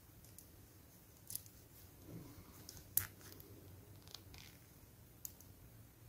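Faint small clicks of faceted crystal beads knocking together as the thread is drawn tight through them to close a five-bead ring: about five sharp ticks, the loudest about halfway through.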